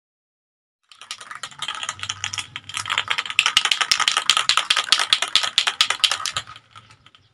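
Aerosol can of Samurai Hi-Temp spray paint being shaken, its mixing ball rattling fast inside to mix the paint before spraying. The rattling starts about a second in and stops near the end.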